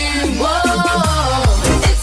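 Upbeat electronic dance music for a workout routine. The steady kick-drum beat of about four a second thins out under a gliding synth melody, then returns near the end.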